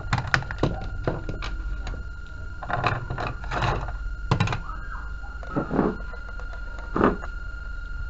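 Irregular knocks, clicks and clatter of handling, about a dozen, the loudest near the start and about seven seconds in, over a steady low electrical hum and a faint steady high whine.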